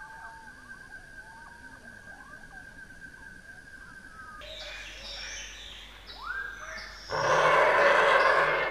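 Nature-soundtrack ambience: short bird chirps over a steady high tone, then a change to sparser gliding bird calls about four seconds in. A loud, harsh animal call lasting about a second and a half comes near the end and is the loudest sound.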